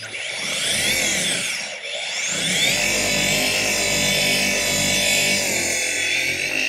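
Flex FX3331 24V cordless gear-driven orbital polisher with a heavy foam polishing pad running on car paint, spreading polish to warm up the pad. It starts at once, dips and picks back up briefly about two seconds in, then runs steadily and begins to wind down at the end.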